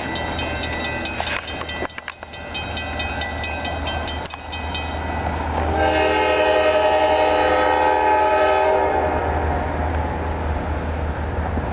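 CSX freight locomotive's air horn sounding one long blast, a chord of several notes, starting about five and a half seconds in and lasting about three seconds, over a steady low diesel rumble. Before the horn, a rapid high ringing at about five strikes a second.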